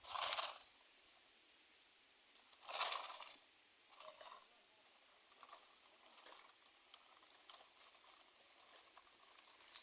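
Faint steady hiss with two short rustling bursts, one at the start and another near three seconds in, and a small click around four seconds.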